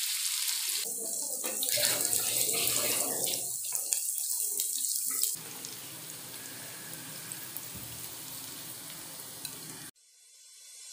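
Sliced onions sizzling in hot oil in a frying pan as they are stirred. About five seconds in the sizzle drops suddenly to a quieter, steady hiss; near the end it cuts out and music starts to fade in.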